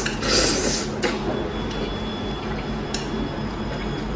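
Close-miked eating sounds: a wet, noisy mouthful about a quarter second in, then a sharp click near three seconds, over a steady low hum.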